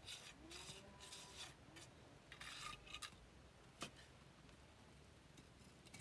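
Faint scraping: four short rasping strokes in the first three seconds, then a single sharp click about four seconds in.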